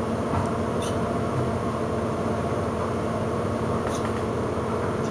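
A steady mechanical hum with a faint hiss, broken by a few faint ticks.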